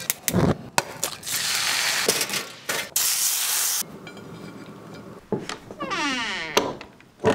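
A quick run of sharp clicks and clatter, then stretches of hissing, the loudest lasting nearly a second, and a swooshing sweep near the end.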